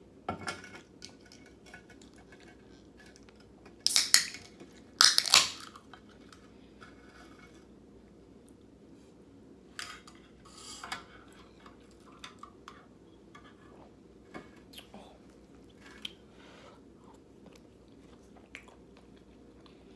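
Close-miked eating: chewing, with a utensil clinking and scraping on a plate. Two louder, brief sounds come about four and five seconds in.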